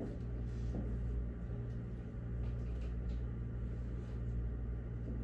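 Classroom room tone: a steady low hum with faint scattered taps and rustles.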